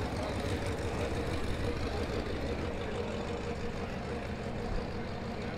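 A vehicle engine idling steadily, a constant low rumble.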